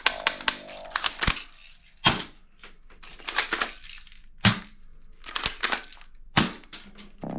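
Toy guns clicking and clacking: about a dozen sharp, irregular clicks of plastic parts being worked or fired, with faint music tailing off in the first second.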